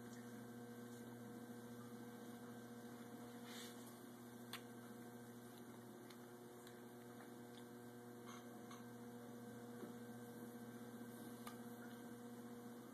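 Faint, steady electrical hum, with a few soft clicks.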